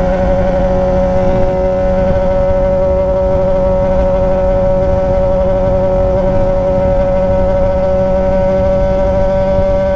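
Yamaha XJ6's 600 cc inline-four engine through a straight-piped 3-inch stainless Atalla exhaust, running at steady revs while riding, one unchanging pitch throughout.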